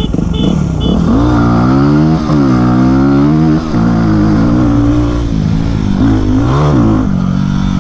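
Yamaha WR250X single-cylinder four-stroke engine accelerating hard from a dirt takeoff. The revs climb, drop back at gear changes about two and three and a half seconds in, and there is another rise near the end. Three short high beeps sound at the very start.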